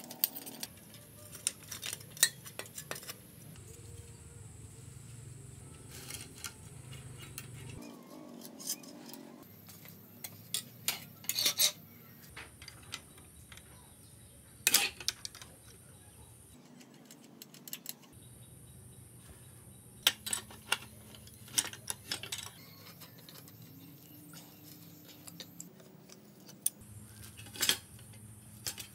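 Steel spanners clinking, tapping and scraping on the rusted nuts and bolts of an old bicycle's brake caliper and handlebar stem as they are loosened, in scattered sharp metallic clicks and knocks.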